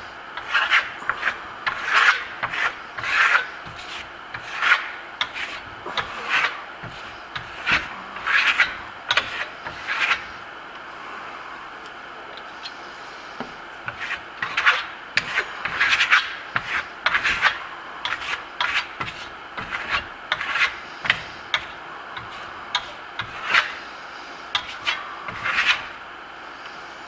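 Steel trowel scraping across a panel as Venetian plaster is spread in a thin coat: a long run of short scraping strokes that stops for a few seconds about halfway, then starts again.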